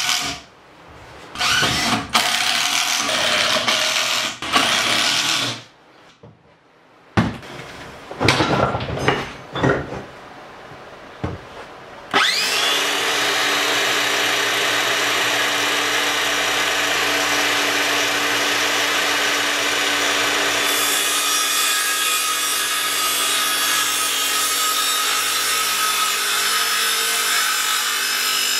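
A cordless driver runs in short bursts, driving screws into a 2x4 frame. About twelve seconds in, a Makita cordless circular saw starts with a rising whine and then runs steadily, cutting through a 2x4.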